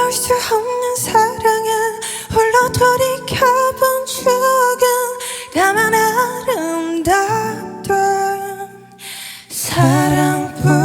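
Closing passage of a ballad cover: held sung notes with slides in pitch over band accompaniment. The music thins out briefly about nine seconds in, then comes back.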